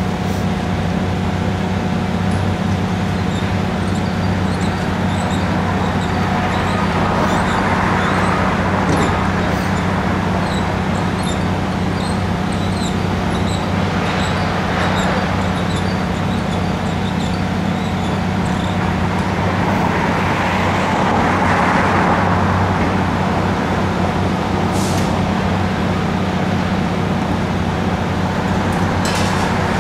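Heavy diesel excavators running steadily while one tears at reinforced concrete, with scattered small cracks and clatters of falling debris. The noise swells twice, around eight and twenty-one seconds in.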